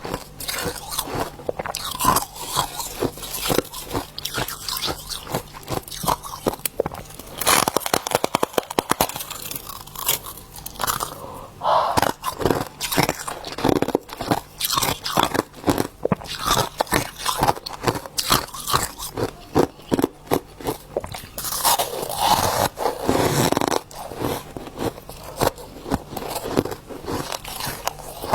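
Soft freezer frost crunching in rapid, irregular crackles, with quicker runs of crunches every so often.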